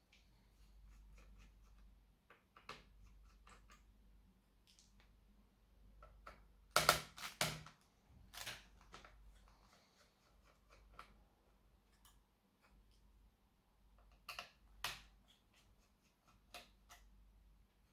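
Scattered clicks and knocks of small plastic and metal laptop parts and tools being handled, with a short cluster of sharper clicks about seven seconds in.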